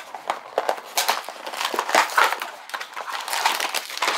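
Small cardboard toy boxes being opened by hand and the plastic wrappers inside crinkling: an irregular run of scratchy rustles and light clicks.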